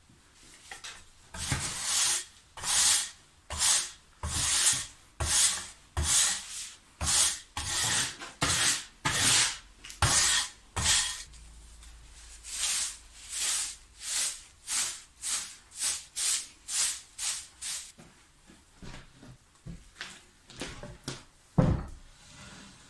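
A hand tool scraping along an old weathered wooden plank, stripping its greyed surface in repeated rasping strokes, about one and a half a second. The strokes grow fainter in the last few seconds, and a sharp knock comes near the end.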